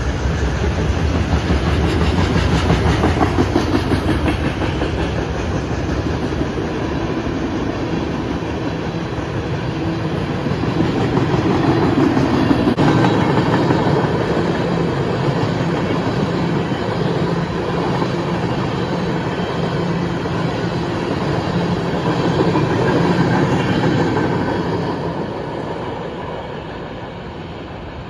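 Freight cars rolling past close by, with steel wheels running over the rails in a continuous rumble that gets somewhat quieter near the end.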